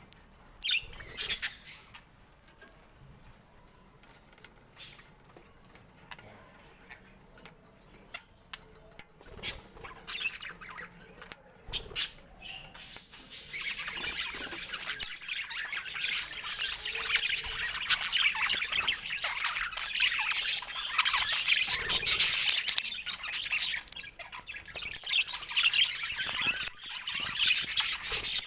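Budgerigars calling: scattered short chirps and squawks at first, then about halfway in a dense, continuous high chattering warble.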